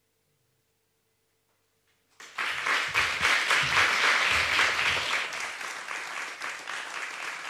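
Audience applauding, starting suddenly about two seconds in after a short silence, loudest at first and then slowly easing off.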